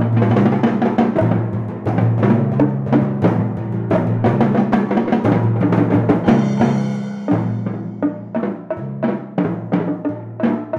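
Youth percussion ensemble playing: copper timpani ring with low notes that change pitch every second or two, under a busy, rhythmic pattern of strokes on snare drums and small percussion.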